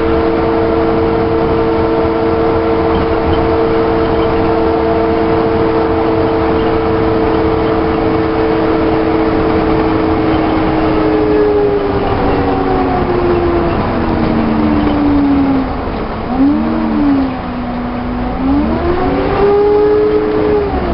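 Volvo double-decker bus with an Alexander body, heard while running along the road: a steady two-note drivetrain whine over a low engine rumble. After about 11 s the whine falls in pitch as the bus slows, dips and wavers, climbs again briefly as it picks up speed, and drops once more near the end.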